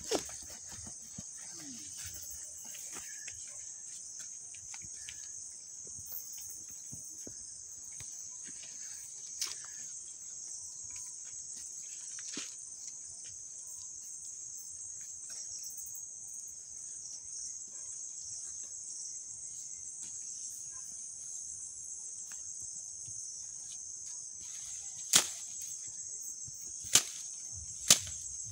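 A steady, high-pitched chorus of insects chirping, with a few sharp clicks near the end.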